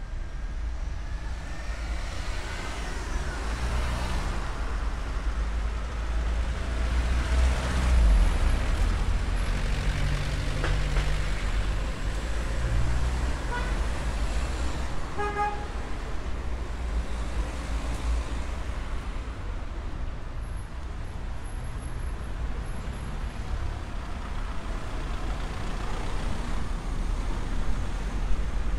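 Street traffic, with cars passing by over a steady low rumble, and a short car horn toot about halfway through.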